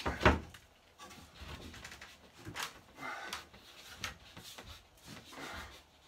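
A drywall panel being pushed up into a ceiling opening, knocking and scraping against the wooden framing as it is worked into a tight fit. A sharp knock about a quarter second in is the loudest, with softer bumps and scrapes after it.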